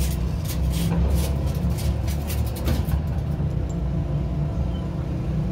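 A steady low rumble, with a run of light ticks over the first three seconds.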